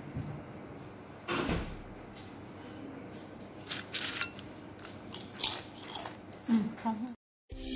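Homemade fried potato chips crunching and crackling in short, sharp bursts: one just over a second in, then a run of crisp crackles from about four to seven seconds in.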